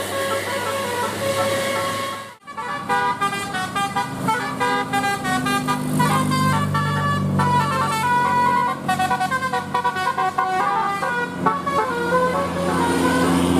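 Bus 'telolet' multi-tone musical horn: a held chord breaks off sharply about two seconds in, then the horn plays a fast tune of short notes stepping up and down in pitch.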